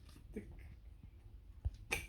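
Faint knocks and clicks of the vacuum cleaner's plastic parts and accessories being handled, with a short sharp noise just before the end.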